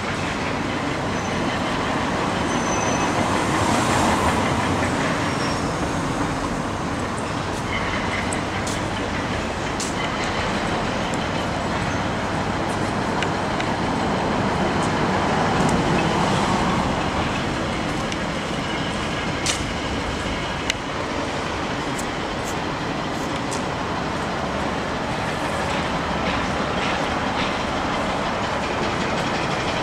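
Steady city street noise with traffic, swelling twice as vehicles go by, with a few sharp clicks in the middle.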